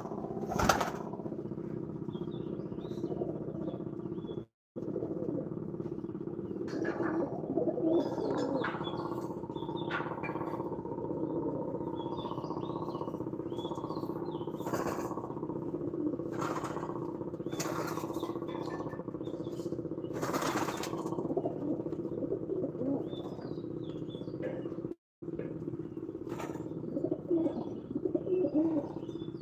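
Racing pigeons cooing in a loft, with short bursts of wing flapping now and then and faint chirps of small birds.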